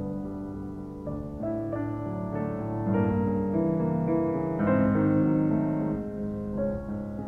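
Background piano music, a melody played note by note over sustained chords.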